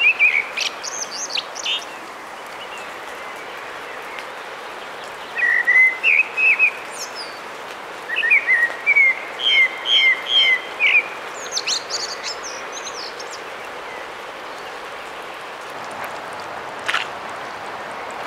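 Songbirds singing in short bursts of repeated notes over the steady rush of mountain streams.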